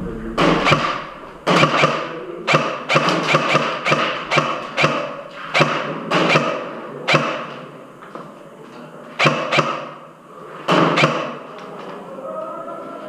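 Airsoft guns firing in a skirmish: sharp echoing cracks as single shots and short rapid bursts at irregular intervals, with a lull about two thirds of the way in before a few more shots.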